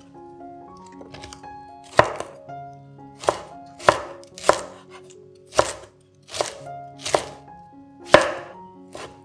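Chef's knife chopping cabbage on a wooden cutting board: about nine sharp knocks of the blade meeting the board, unevenly spaced about a second apart. Soft background music plays underneath.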